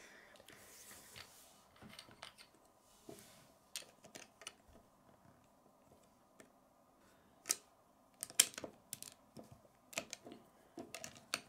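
Plastic Lego bricks clicking and tapping as they are handled and pressed onto a small brick model: scattered light clicks, busier and louder in the second half.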